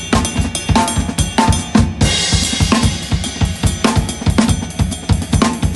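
Acoustic drum kit played at a steady fast pulse: bass drum and snare strokes with cymbals. A cymbal crash about two seconds in rings on for about a second.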